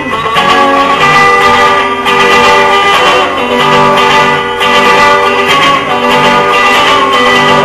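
Instrumental guitar music, notes and chords held and changing in steps, with no singing.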